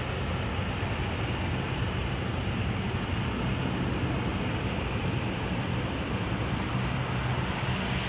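Steady distant rumble of a departing Boeing 737-300 airliner's jet engines on climb-out, a few kilometres away.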